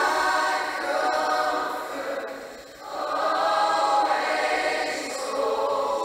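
Background music: a choir singing long, held phrases, with a short lull between phrases about two and a half seconds in.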